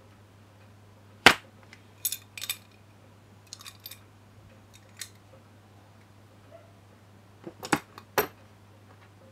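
Metal A/C compressor clutch-holding wrench clicking and clacking as its adjustable arms and pins are handled, with the sharpest click about a second in. Near the end it is set down into its moulded plastic case with a few quick knocks.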